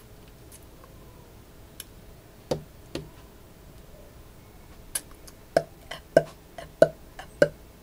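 Drum hits from a drum set. Two single hits come about two and a half seconds in. From about halfway there is a steady beat of nearly two hits a second.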